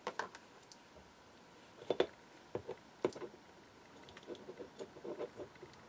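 Small brass and aluminium model-engine parts clicking and tapping as they are handled and fitted together by hand on a workbench: a few separate clicks, a louder pair about two seconds in, and a run of small light clicks near the end.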